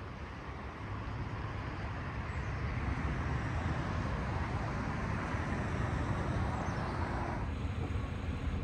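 Truck driving, a steady mix of engine and road noise that eases off near the end.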